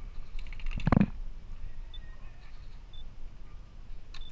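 A quick string of sharp clicks ending in a dull thump about a second in, then a few more clicks near the end.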